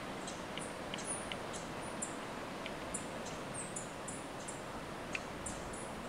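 Rainforest ambience: many short, high-pitched chirps coming irregularly, several a second, over a steady hiss, with a few faint ticks.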